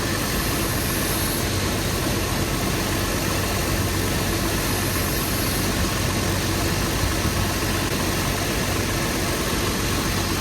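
2008 Toyota Tacoma's engine idling steadily during an AC refrigerant recharge, a constant low drone that does not change.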